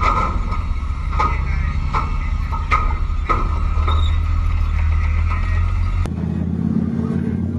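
Flakpanzer Gepard tracked anti-aircraft tank with its V10 diesel engine running as it crawls across a steel pontoon bridge, with sharp metal clanks from the tracks on the deck panels every second or so. About six seconds in the sound changes abruptly to a quieter, steadier engine rumble.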